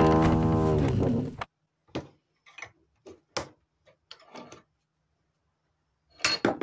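A loud steady pitched hum that dips slightly in pitch, then cuts off about a second and a half in. It is followed by scattered sharp metal clicks and taps as a screwdriver is worked against a steel exhaust flange held in a bench vise, prying out a leftover stub of pipe, with a quick cluster of clanks near the end.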